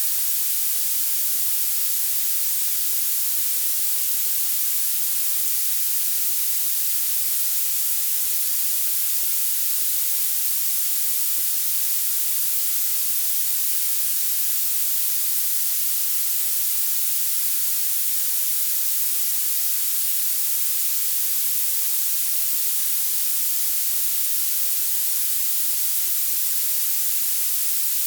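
Violet noise: a steady, unbroken hiss with its energy piled into the highest pitches and almost nothing in the bass.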